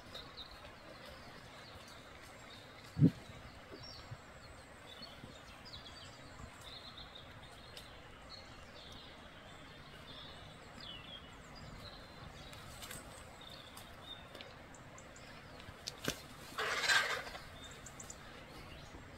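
Griffon vultures feeding at a carcass: faint high chirping calls through much of it, a short low thud about three seconds in, and a harsh hiss about a second long near the end.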